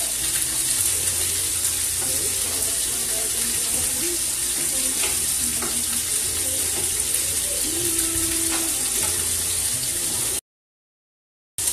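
Pork chops sizzling in a frying pan on high heat: a steady frying hiss. The audio cuts out for about a second near the end.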